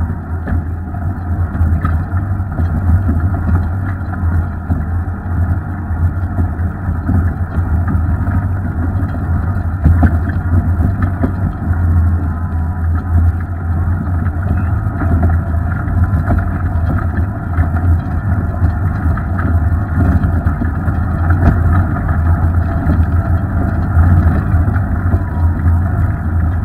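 Off-road vehicle engine running steadily at low speed over a rocky dirt trail: a muffled, even low drone, with scattered clicks and knocks from the rough ground.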